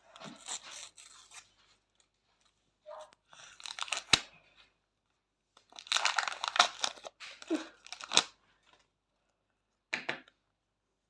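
Panini Premier League card pack's wrapper being torn open and crinkled, in several separate bursts of tearing and rustling, the longest and loudest about two thirds of the way through, with a sharp click about four seconds in.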